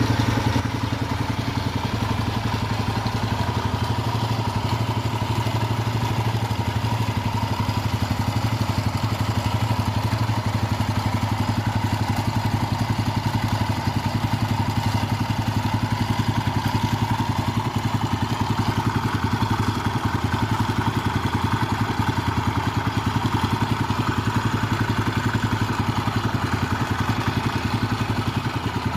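Suzuki Spin 125 single-cylinder four-stroke scooter engine, rigged as a boat outboard motor, running steadily at a constant speed.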